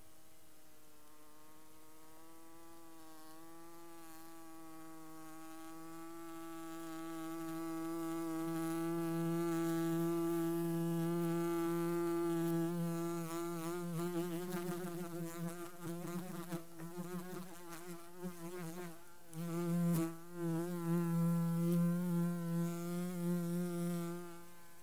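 Electronic buzzing drone of two steady low tones with many overtones, swelling over the first ten seconds, then wavering and pulsing in the second half before cutting off near the end.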